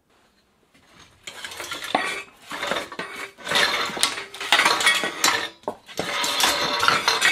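Stripped bicycle parts (aluminium frame, wheels, rack, cables and small pieces) clattering and clinking against each other and the concrete floor as they are gathered up for the scrap container. It starts about a second in and goes on as a busy run of metallic knocks and short rings.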